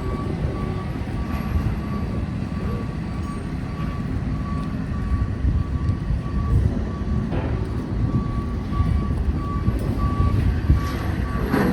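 A construction vehicle's reversing alarm beeping repeatedly at one steady pitch over the low rumble of heavy engines.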